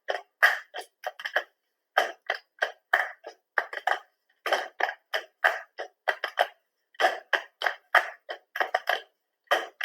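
Body-percussion rhythm: short claps and slaps played in a steady, repeating pattern of several strokes a second, with brief gaps between groups.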